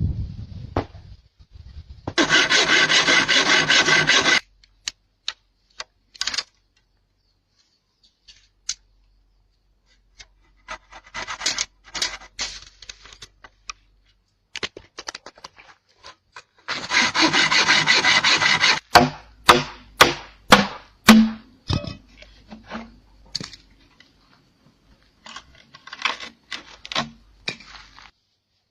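Wood being worked by hand: two bursts of rasping, sawing-like scraping on wood about two seconds each, the second followed by a run of sharp knocks, with scattered lighter taps between.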